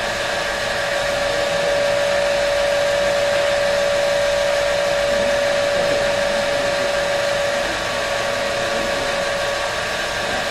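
Lab DC motor and its coupled dynamometer running steadily at about 1,460 rpm under a light load. It gives an even whirr with a steady high whine.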